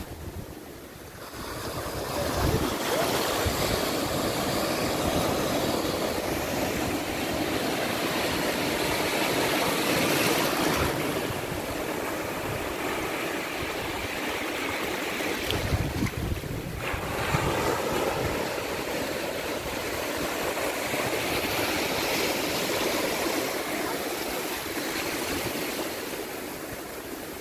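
Sea surf breaking on the beach and foam washing up the sand, a steady rush that swells and eases every few seconds.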